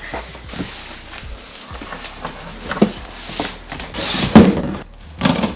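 Large cardboard box being shifted and handled: rustling and scraping of cardboard with knocks, loudest about four seconds in. Near the end a box cutter starts slitting the packing tape.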